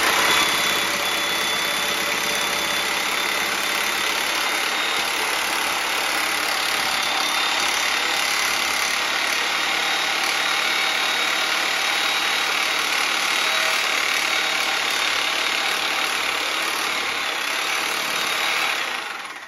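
Corded reciprocating saw running steadily at full speed, its blade cutting through the trunk of a fresh-cut Christmas tree, with a steady high motor whine over the sawing noise. The saw stops just before the end.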